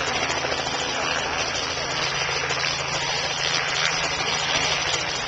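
Small helicopter hovering low, its engine and rotor making a steady drone.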